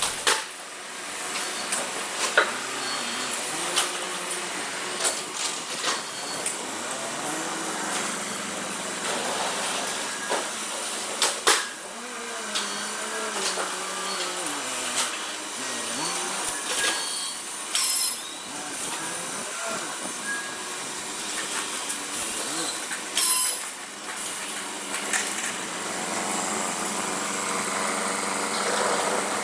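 Automatic brick factory stacking and baling machinery running with a steady mechanical noise, broken by frequent sharp clanks and knocks, the loudest about 2.5, 11.5, 18 and 23 seconds in.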